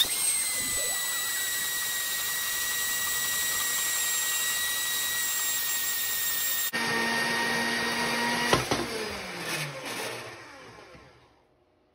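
Horizontal metal-cutting band saw running as it cuts through an aluminium tube. For about the first two-thirds it is played sped up, so the motor hum is a high, steady whine. It then drops to a normal-speed hum, and after a sharp click the motor winds down, falling in pitch as it fades.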